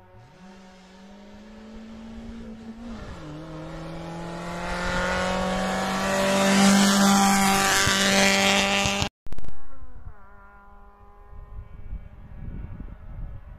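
A race car's engine at high revs approaching and passing close, growing steadily louder, with its pitch dropping once about three seconds in. The sound cuts off abruptly about nine seconds in, then an engine falls in pitch and fades away.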